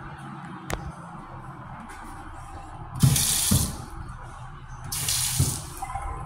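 Restroom sink faucet running in two short bursts, water splashing into the basin, about three and five seconds in.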